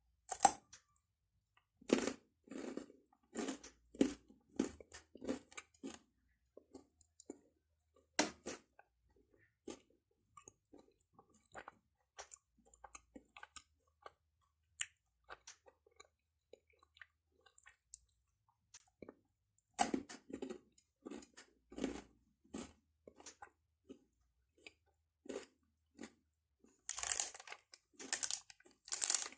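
Close-miked eating of a Cadbury chocolate bar: a few crisp bites, each followed by a run of crunchy chewing at about two chews a second, with fainter chewing in between. Near the end comes a loud crinkling rustle.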